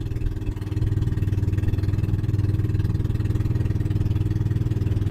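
Motorized boat engine running steadily at a low, even hum, growing louder about a second in and then holding.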